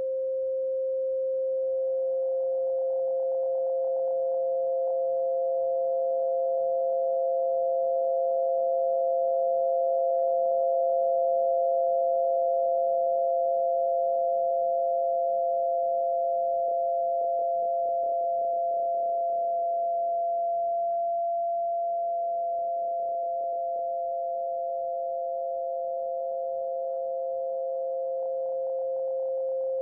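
Tinnitus-masking sound of pure synthetic sine tones: one steady mid-pitched tone, joined about two seconds in by a second, slightly higher steady tone. The higher tone eases off near the end. The lower tone wavers briefly a little past halfway.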